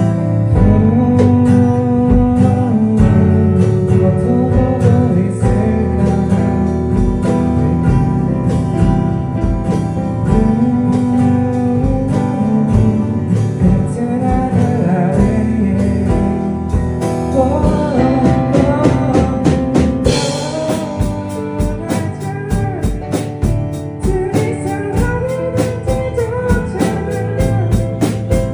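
A live band playing a pop song together: acoustic guitar, keyboard and drum kit, with a voice singing the melody. About two-thirds of the way in, the cymbals pick up into a steady, busier beat.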